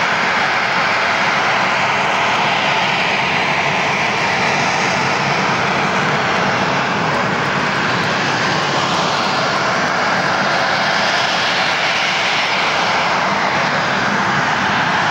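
Engine of a single display aircraft making a low pass over the airfield: a loud, continuous engine sound whose pitch shifts slowly as it moves across the sky.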